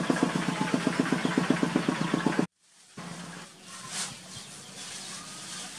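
A small engine running with a rapid, even beat of about ten pulses a second. It cuts off abruptly about two and a half seconds in, leaving faint background sound.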